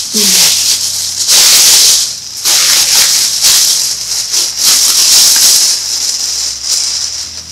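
Plastic shopping bag rustling and crinkling in a series of loud bursts while a grapevine wreath with artificial flowers is pulled out of it.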